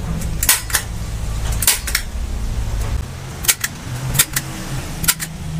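Hand staple gun firing staples into the rubber of a cut car tyre: about five sharp double snaps at irregular intervals, over a low steady hum.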